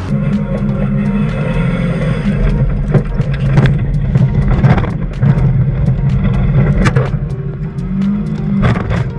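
A car heard from inside its cabin while driving over rough ground: a steady low engine drone with repeated knocks and rattles as the body jolts over the bumps.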